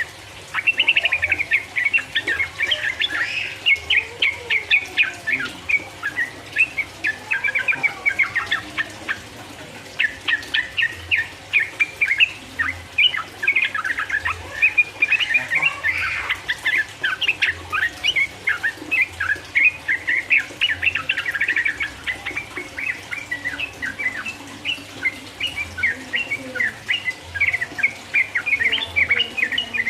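Yellow-vented bulbul (trucukan) singing a fast, continuous chattering run of chirps, the long 'ropel' song, with a short pause about nine seconds in.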